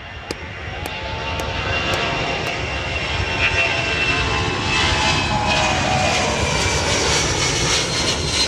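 Airplane engine growing louder over the first few seconds as the aircraft approaches and passes, its tone slowly falling in pitch.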